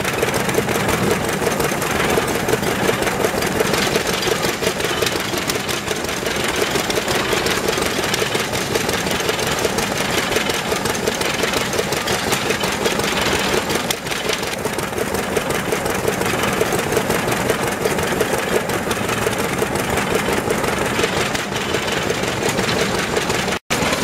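Several vintage single-cylinder stationary engines running together, their exhaust beats and knocks overlapping in a steady rapid rhythm. The sound drops out for a moment near the end.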